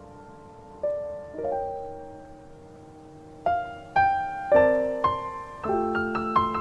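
Gentle solo piano background music: a few notes in the first half, then a denser phrase of chords from about three and a half seconds in.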